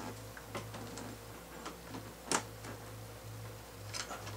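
Scattered light plastic clicks and taps as the small door trim panel at the mirror corner is handled and pulled free of its clips, with one sharper click about two seconds in. A faint low hum comes and goes underneath.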